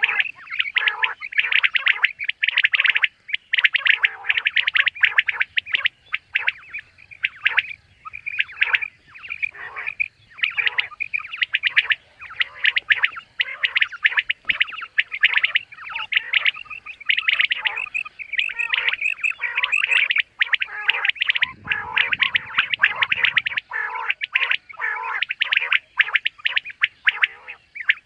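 Common quail calling over and over: quick runs of short, sharp, clipped notes, hardly pausing.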